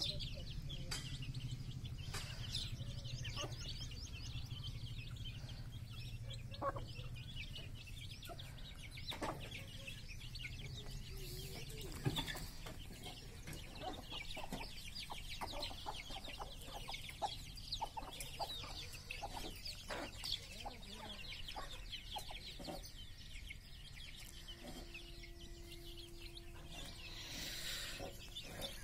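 A flock of young domestic chicks peeping fast and continuously as they peck at feed, with adult hens clucking now and then.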